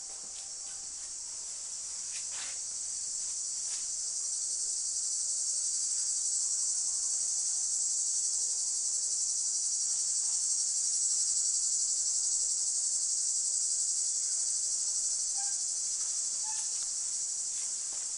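A chorus of insects outdoors, a steady high-pitched buzzing drone that swells a little in the middle and eases near the end.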